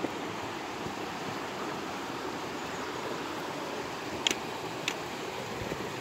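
Creek water rushing over small cascades, a steady even hiss. Two short sharp clicks come about half a second apart near the end.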